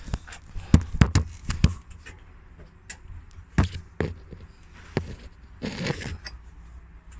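Irregular sharp metallic clicks and knocks, with a short scrape near the end, from hand work on an exposed diesel valve train as the engine is turned over by hand with a bar.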